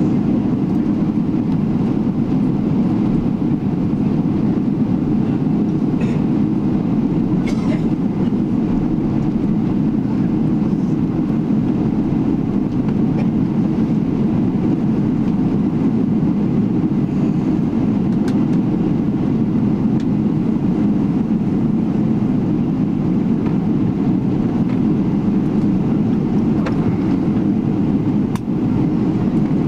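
Cabin noise inside a Boeing 777-300ER taxiing at low speed: a steady low rumble from its GE90 engines at taxi idle and the aircraft rolling along the taxiway, with a few faint clicks.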